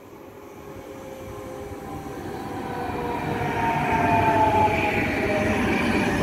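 CFL Class 2200 double-deck electric multiple unit (units 2217 and 2220) approaching and running past the platform, growing steadily louder until about four seconds in. A whine of several tones slides slowly down in pitch as it passes, over the rumble and rush of the wheels on the rails.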